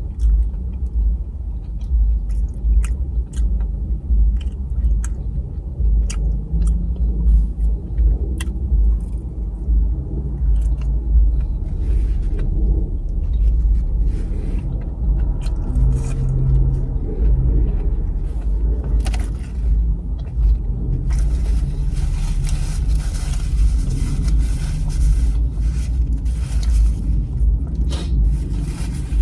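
Chewing with wet mouth clicks over a steady low rumble. A hiss joins about two-thirds of the way through.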